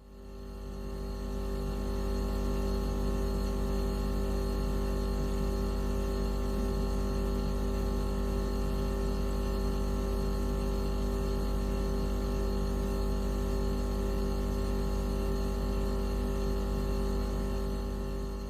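Synthetic electronic tone of many steady held pitches layered into a constant hum, played as an anti-mosquito repellent sound. It fades in over the first couple of seconds and starts fading out near the end.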